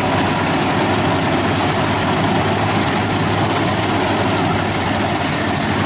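Engine and machinery of an FMWorld WD 102pro tracked rice combine harvester running steadily and loudly at close range as it crawls through soft, muddy paddy ground.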